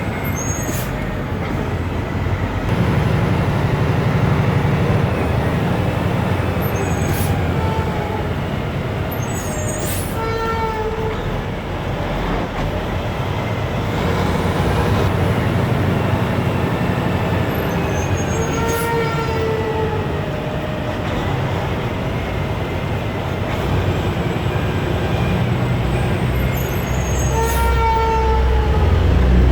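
A heavy vehicle running with a steady low rumble. Short pitched tones sound now and then, about every eight to ten seconds, along with brief sharp hisses.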